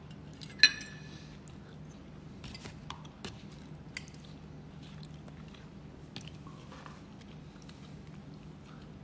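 Someone eating: quiet chewing and small clicks of cutlery and dishes, with one sharp, briefly ringing clink about half a second in, over a steady low hum.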